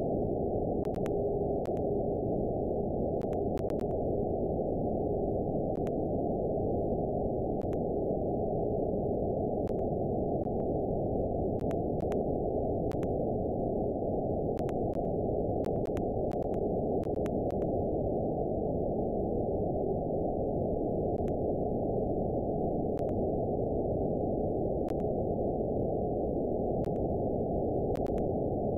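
Radio receiver hiss from an RTL-SDR tuned to the 49.75 MHz television video carrier, held to a narrow band below about 1 kHz. A faint steady beat tone fades in and out over the hiss: the weak carrier heard by meteor scatter. There are scattered faint clicks.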